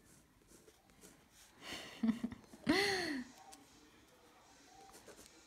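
A breath, then a short wordless vocal sound from a person, like a hummed 'mm', that rises and falls in pitch over about half a second, near the middle. Around it come faint ticks of a ballpoint pen on sketchbook paper.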